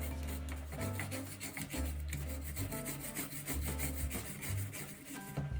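Repeated scrubbing strokes on an Xbox 360 controller being cleaned with isopropyl alcohol, over background music with a low bass line.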